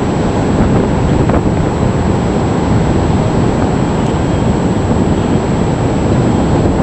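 Heavy hurricane surf rushing and breaking, mixed with strong wind buffeting the microphone: a loud, steady noise with no letup.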